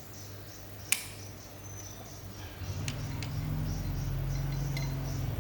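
A sharp click about a second in, then a low steady hum comes in and grows louder, with a few light ticks; insects chirp in pulses throughout.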